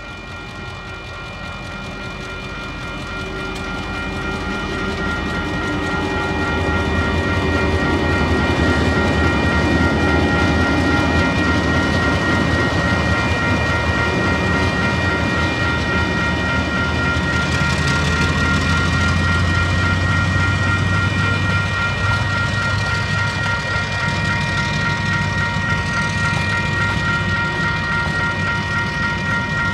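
Level crossing bells ringing steadily while a Tasrail TR class diesel-electric locomotive approaches and passes with its freight train. The engine rumble grows over the first several seconds, then the wagons roll over the crossing.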